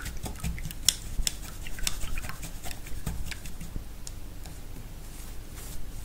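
Paintbrush swirled in a glass jar of rinse water, knocking against the glass in quick, irregular light clicks for the first three or four seconds, then a faint soft brushing as paint is mixed on the palette.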